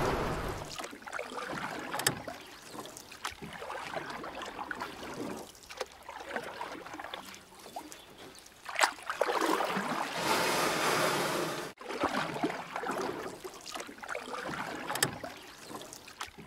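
Harbour ambience: water washing and wind on the microphone, an uneven rushing noise with scattered small ticks that swells for a couple of seconds about nine seconds in.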